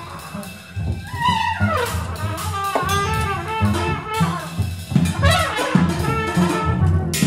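Music: a double bell trumpet plays bending, gliding notes, falling about a second in and rising again near the middle, over low double bass notes and scattered percussion hits.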